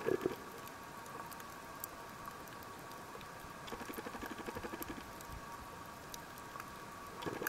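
Underwater ambience picked up by a camera in its housing: scattered faint clicks and crackles over a thin steady hum. Short spells of rapid low pulsing come right at the start, again for about a second and a half in the middle, and just at the end.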